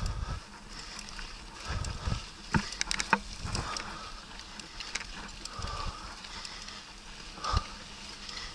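Mountain bike ridden over a rough dirt track: tyres rolling on the ground and the bike rattling and knocking over bumps, with a cluster of sharp knocks near the middle and another knock near the end.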